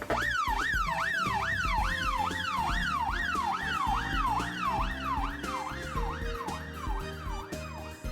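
Emergency vehicle siren in a fast yelp, its pitch sweeping up and down about twice a second; it starts suddenly and fades away near the end, over background music with a steady beat.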